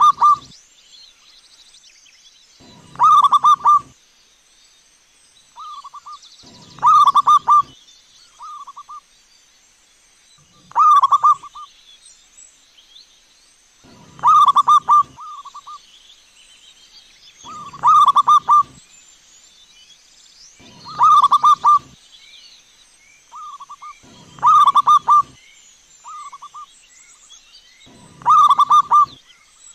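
Zebra dove (perkutut) cooing in full song: the same short, rhythmic phrase about every three and a half seconds, nine times over, sometimes followed by a brief extra note.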